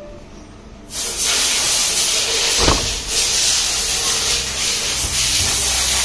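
Steam hissing out of a coffee machine's steam line, starting suddenly about a second in and continuing steadily. A brief knock comes near the middle.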